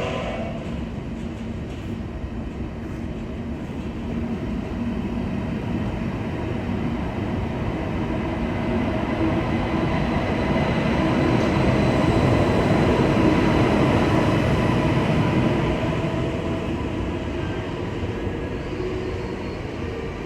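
A train moving through the station, with a steady rail rumble that builds to its loudest a little past the middle and then eases off.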